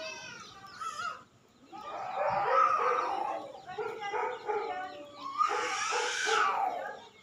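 Gaddi dog whining and yowling in a string of wavering, pitched cries, with a short pause a little over a second in.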